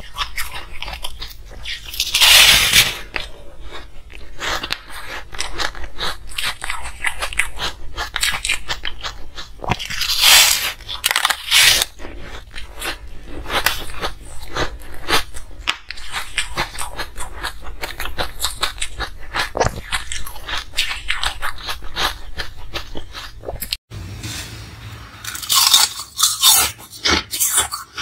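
Close-miked biting, crunching and chewing of frosty ice cubes. There are dense irregular crunches throughout, with a few louder bites.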